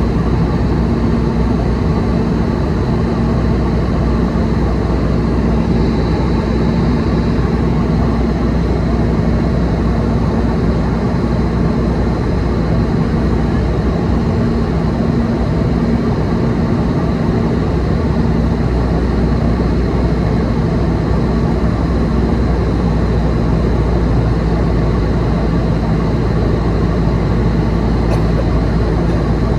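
Cabin noise of an Airbus A320-216 climbing after takeoff, heard from a window seat over the wing. Its CFM56-5B turbofan engines and the rushing airflow make a loud, steady drone with a low hum and a few held tones.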